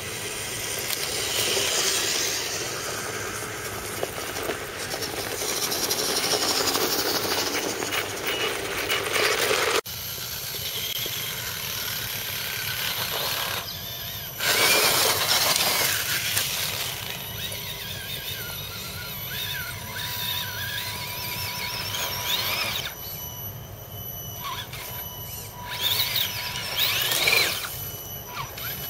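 Electric radio-controlled scale trucks running off-road, their motors and gearboxes whining and the pitch rising and falling with the throttle. In the first part tyres are heard rolling over gravel. The sound changes abruptly about ten seconds in.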